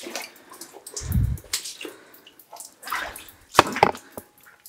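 Irregular scuffing and splashing of footsteps over a wet mine floor, with a low thud about a second in and a quick cluster of sharp knocks about three and a half seconds in.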